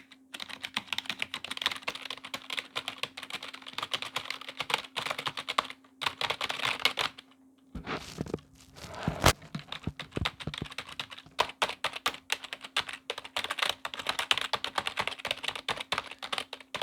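Corsair K55 membrane keyboard being typed on quickly and continuously, a dense run of key clicks with a brief pause a little under halfway, followed by a few louder knocks. A faint steady hum lies underneath.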